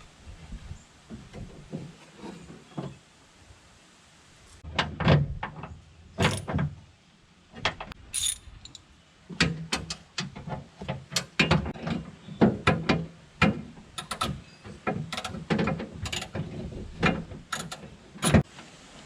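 Irregular clicks and knocks of a pickup's door handle and lock-rod parts being worked and clipped into place inside the door, thickest in the second half.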